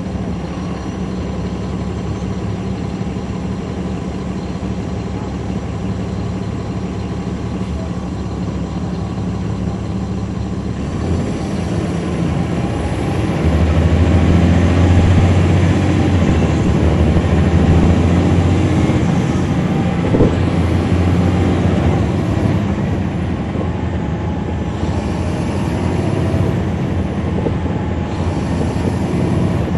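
Caterpillar C13 ACERT diesel engine of a NABI 40-SFW transit bus, heard from inside at the back, running steadily. About eleven seconds in it grows louder and fuller, is loudest a few seconds later, then eases off a little. A single short knock comes about two-thirds of the way through.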